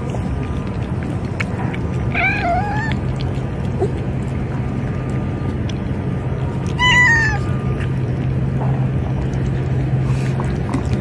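A cat meows twice, once about two seconds in and again about seven seconds in, over a steady low background hum.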